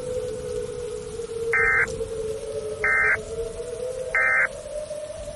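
Emergency Alert System end-of-message data tones: three short bursts of digital SAME warbling screech, about a second and a half apart, over a low, slightly wavering drone.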